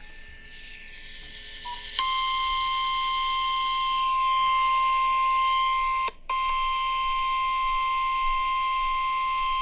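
NOAA Weather Radio 1050 Hz warning alarm tone, one steady electronic tone that starts about two seconds in and drops out only for an instant around six seconds in. It signals that a warning message is about to be broadcast.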